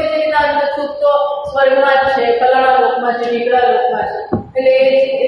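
Voices chanting a Sanskrit verse in slow, long-held notes, phrase by phrase, with a short break about a second and a half in and another near the end.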